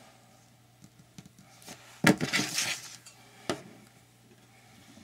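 Metal scissors handled on a cutting mat: a short metallic clatter about two seconds in, then a single sharp click about a second and a half later.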